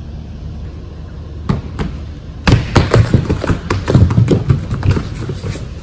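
Several people running across a wooden gym floor: a single thump, then a rapid clatter of heavy thudding footsteps that starts about two and a half seconds in.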